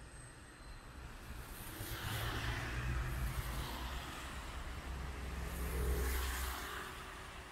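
Cars passing on a wet road, their tyres hissing through the water over a low engine rumble. Two passes swell and fade, one about two seconds in and a louder one around six seconds in.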